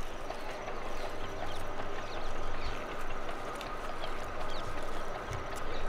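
Steady drone of a tubewell pump with a constant whine, and scattered small clicks and short high chirps over it; a low hum under it stops a little before halfway.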